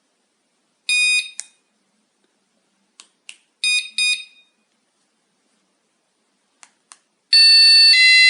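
Battery-powered wireless door/window alarm: a short electronic beep about a second in, a few light clicks, and two quick beeps around four seconds in. Near the end the loud, piercing siren starts and steps down to a lower pitch partway through.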